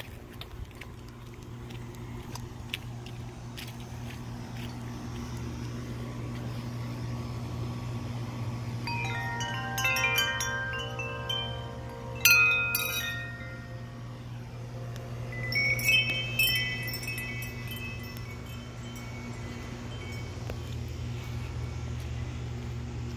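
Large tubular wind chime of long metal tubes ringing: clusters of several overlapping bell-like tones about 9 seconds in and again around 16 seconds, with a sharp clang near 12 seconds, and fainter tones near the end. A steady low hum runs underneath.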